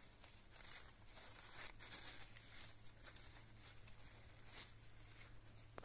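Faint rustling and crinkling of plastic grafting film being peeled and unwound from a graft, a string of soft irregular crackles.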